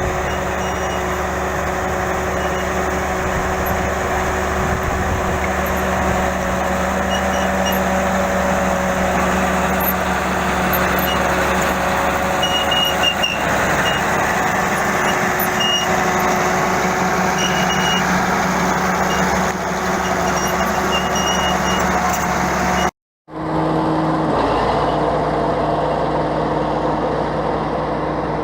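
BEML BD80 crawler bulldozer's diesel engine running steadily under load. The sound cuts out for a moment about 23 seconds in and comes back at a slightly different pitch.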